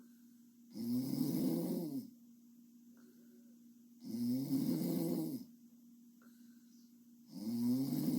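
A young woman snoring in her sleep: three snores about three seconds apart, each lasting a little over a second, over a faint steady hum.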